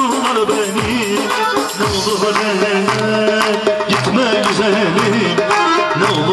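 Loud Turkish folk dance music played over PA speakers: an ornamented, wavering melody over steady drum beats.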